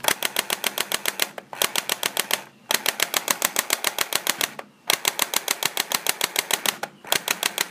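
Clear plastic toy airsoft rifle firing on full auto: a fast rattle of clicks, about ten a second, in five bursts with short pauses between them.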